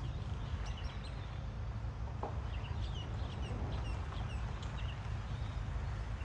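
Birds chirping: many short, high calls scattered throughout, over a steady low rumble.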